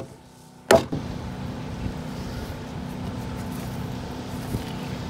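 Two sharp hammer blows on a timber foundation beam, one at the very start and one just under a second in, driving the beam down to level. After the second blow a steady engine hum sets in and runs on.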